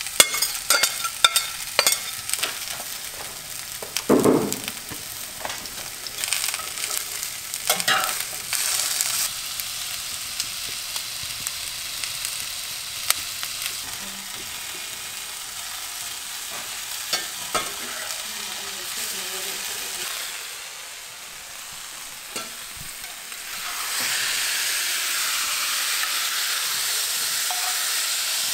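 Vegetables frying and sizzling in a cast-iron skillet, with a metal spatula clinking and scraping against the pan as they are stirred. For the last few seconds the sizzle turns steadier and louder.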